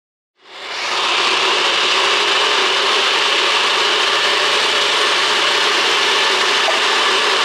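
NutriBullet personal blender running, blending a thick green plantain and oats mixture; the motor noise comes in about half a second in and holds at a steady level.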